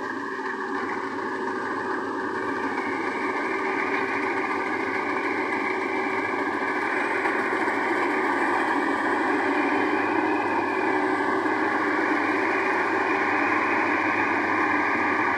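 Rice harvester running steadily, its engine and machinery making a dense, even mechanical noise that grows louder over the first few seconds and then holds.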